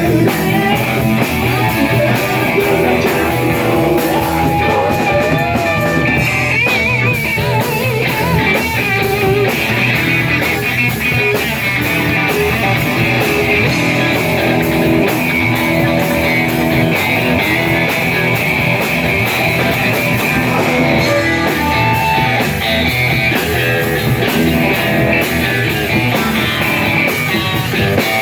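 Live rock and roll band playing a passage without vocals, with electric guitar and drum kit.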